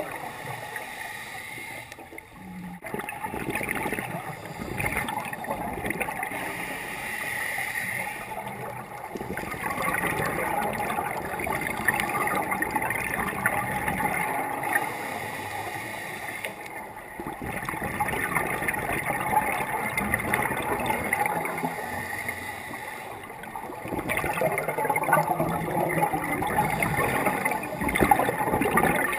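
A scuba diver's exhaled bubbles leaving the regulator, heard underwater through a GoPro's waterproof housing: four long gurgling bubble bursts, roughly one every six seconds, with quieter gaps between as the diver breathes in.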